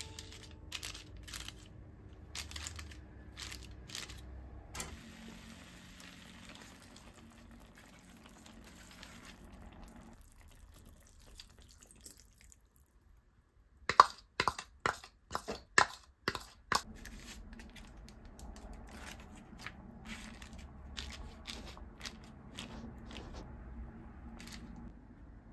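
Chicken and vegetables simmering in a pan under a parchment-paper drop lid: faint bubbling with soft crinkles and clicks. About halfway through, after a brief quiet gap, there is a quick run of sharp clicks and knocks while soy sauce, mirin and dashi are added, and then the quiet simmering carries on.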